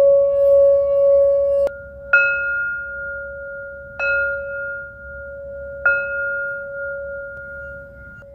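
Singing bowls ringing. A steady tone with a slow wobble breaks off abruptly about two seconds in. Then a higher-pitched bowl is struck three times, about two seconds apart, each strike ringing on and slowly fading over a continuing lower hum.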